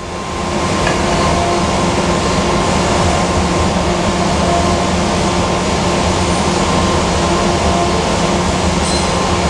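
Steady running hum of shop machinery, a constant noise with a few held tones that eases in over the first second and stays even.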